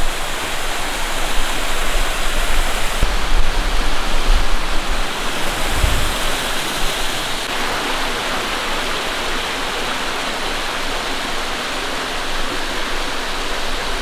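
Steady, loud rushing water from a creek or falls beside the walking track, with a few brief low rumbles in the first half.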